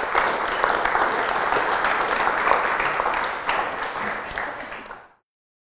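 Audience applauding, a dense patter of many hands clapping that fades out and stops near the end.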